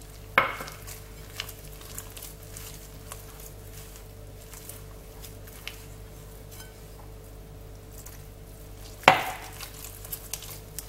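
A hand mixing and squeezing sticky bread dough in a glass bowl, with soft squishing and small scraping clicks. Two sharp, ringing knocks stand out, one about half a second in and one near the end, over a faint steady hum.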